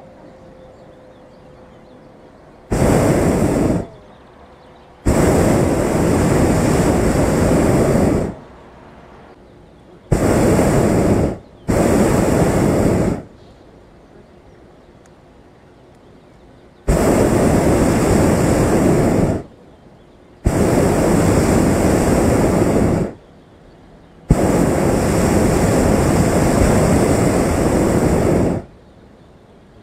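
Hot air balloon's propane burner firing in seven blasts of one to four seconds each, every blast starting and stopping abruptly, with a low hiss in the gaps.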